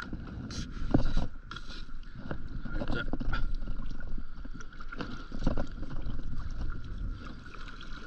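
Small waves lapping and slapping against an inflatable stand-up paddleboard, with wind rumbling on the microphone and scattered knocks at irregular intervals.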